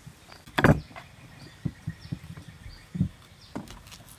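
Several separate knocks on a thick wooden chopping board as a head of broccoli is handled and cut with a kitchen knife; the loudest comes about half a second in.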